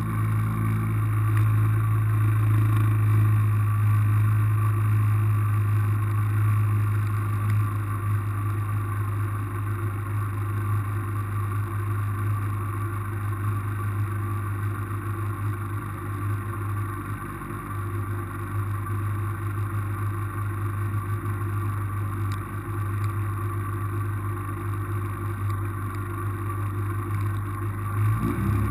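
A car engine running steadily at a constant low drone, with no revving or passing by, like a rally car idling.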